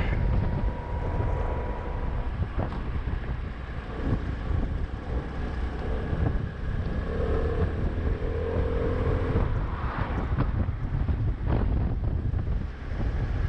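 Vehicle driving along a road: a steady low engine and road rumble, with wind buffeting the microphone.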